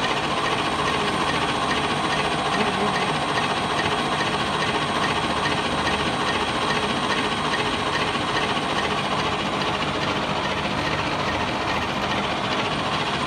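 A cutter machine running for blade sharpening, with its blade rotor and big belt pulley spinning in reverse and the blade grinder's electric motor running. It makes a steady mechanical whirr with a motor hum underneath.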